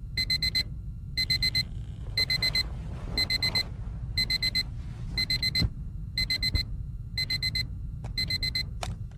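Digital alarm clock beeping in bursts of four quick high beeps, about one burst a second, over a low steady hum.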